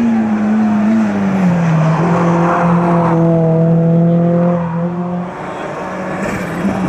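Hill-climb race car engine running hard as it passes; its pitch drops about a second in and holds steady, then the sound fades about five seconds in. Another engine rises near the end.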